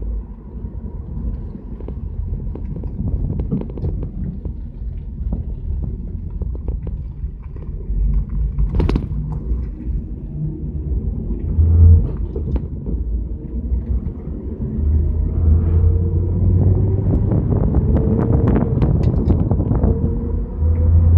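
1977 Chevrolet Camaro driving, heard from inside the back seat: a low engine and road rumble. Its engine note rises in pitch over the last few seconds. A single sharp click comes about nine seconds in.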